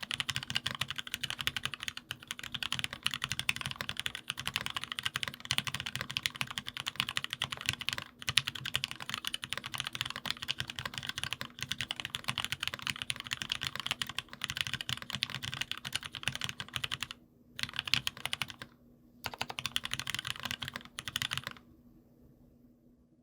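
Fast, continuous typing on a gasket-mounted aluminium Monstargear XO K80 mechanical keyboard with lubed and filmed Gateron Merlot tactile switches, 70 g springs and foam dampening. The result is a dense run of keystrokes with two short breaks near the end, and the typing stops shortly before the end.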